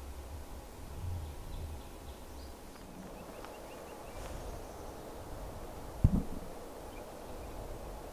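Open-air ambience: a low rumble for the first couple of seconds, faint distant bird chirps, and one short sharp thump about six seconds in.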